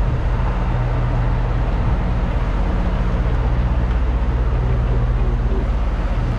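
Semi-truck diesel engine heard from inside the cab, running at low speed with a steady low drone as the rig turns slowly through a loading yard.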